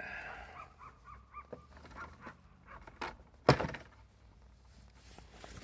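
Rubber grommet squeaking in short chirps as the fuel gauge sender is pressed and twisted into the snowmobile's fuel tank, with small handling noises, then one sharp knock about three and a half seconds in.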